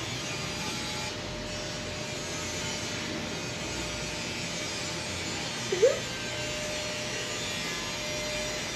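Steady mechanical whirring hum with hiss and a faint steady tone. A brief rising vocal sound cuts in about six seconds in.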